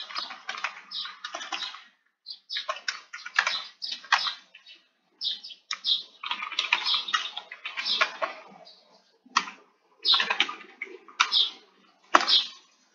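Typing on a computer keyboard: quick runs of keystroke clicks in bursts, broken by short pauses.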